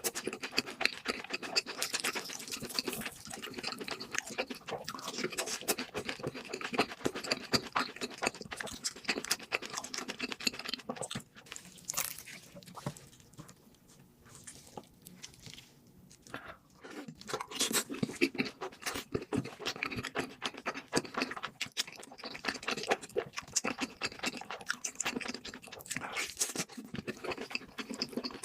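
Close-miked crunchy chewing and biting of fried food, with dense crackling crunches; quieter for a few seconds around the middle, then crunching again.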